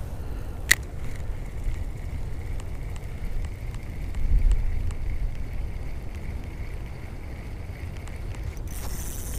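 Small spinning reel on a short ice-fishing rod: a sharp click just under a second in as the bail snaps shut after the cast, then a faint steady whir as the handle is cranked to retrieve the lure. Low wind rumble on the microphone throughout.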